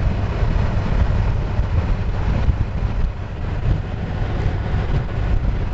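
Motorcycle travelling at motorway speed: a steady low rumble of engine and road noise under wind rushing over the microphone.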